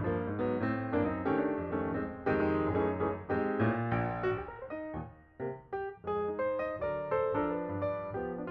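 Background piano music: a steady stream of short notes in a flowing melody.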